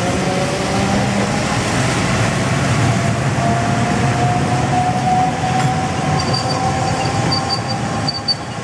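Hiroshima Electric Railway 1900-series streetcar, car 1903, rolling past close by on wet street track: a steady rumble of wheels on rail and running gear. Midway a whine rises slowly in pitch, and near the end there is a faint, broken high squeal.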